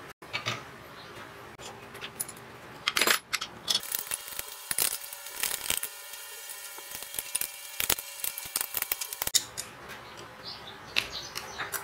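Light metallic clinking and tapping: a spanner and bolts knock against the steel plate and the motor's mounting foot while the motor is bolted down. The clinks come thickest from about three seconds in until a little past nine seconds, with a faint metallic ringing between them.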